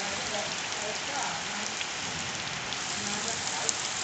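Heavy rain falling steadily: a dense, even hiss with scattered sharp drop ticks.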